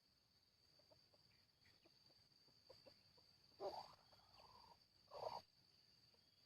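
Junglefowl clucking: two short calls about a second and a half apart in the second half, with a few faint clicks between, over a faint steady high-pitched whine.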